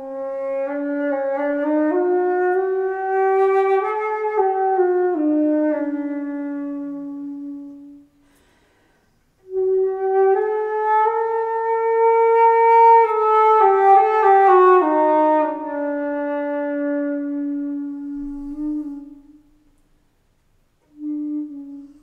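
Solo flute improvising in its low range: two slow phrases of long, held notes that climb and then fall back, with a short pause between them and one brief note near the end.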